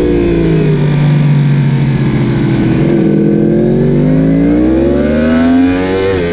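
Onboard sound of a Yamaha sport bike's inline-four engine, with wind noise. The engine note falls as the bike slows into a tight corner and holds low through it, then rises steadily as the bike accelerates out. There is a short dip in pitch near the end.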